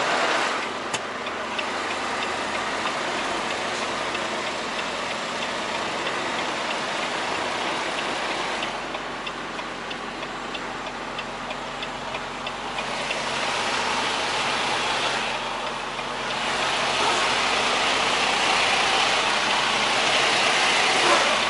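Semi-truck running, a steady engine and road noise that swells a little toward the end, with a short stretch of regular ticking about halfway through.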